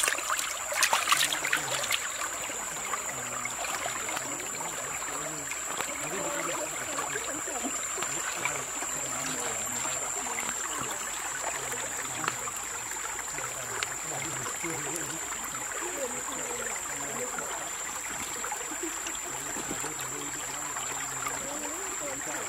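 Shallow stream water running and trickling over rocks, steady throughout, with a few brief wet splashes about a second in as a softshell turtle is handled and rinsed in the water.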